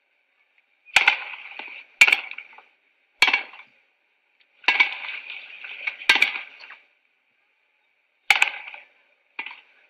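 Tennis rally on an old film soundtrack: about seven sharp pocks of rackets hitting the ball and the ball bouncing, irregularly spaced, each with a short rough tail.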